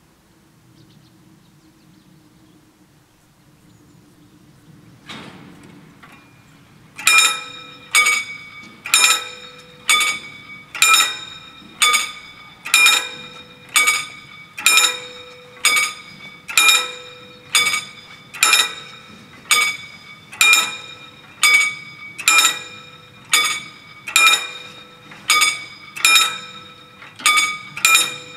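German level-crossing warning bells starting to ring about seven seconds in, striking slightly more than once a second, each strike ringing and fading: the crossing's warning that a train is approaching and the barriers are about to come down. Before that there is only a low background rumble and a single knock.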